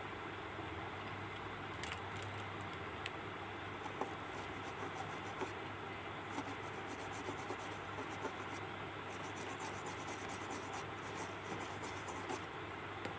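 Faint scratching and small clicks of a small hand tool working against the circuit board along the edge of an LED TV panel, over a steady background hiss and low mains hum.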